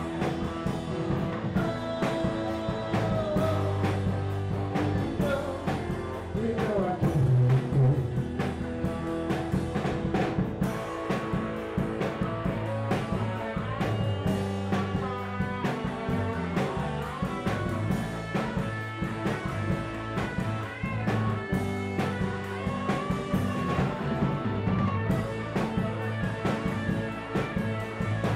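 Live band playing electric guitars over a drum kit with a steady beat.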